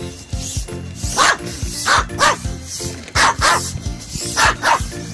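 A small dog barking in quick pairs, about eight barks in all, over background music.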